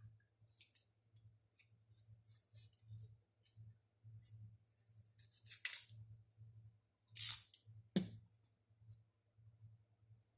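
Small hand tools at work: light clicks and snipping or scraping sounds, with two short louder scrapes midway and a sharp knock about eight seconds in. A low steady hum runs underneath.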